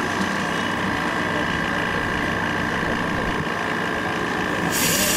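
Steady background hum with two constant tones. Just before the end, the hiss of a sandblasting gun blowing air and abrasive inside a homemade blast cabinet starts abruptly.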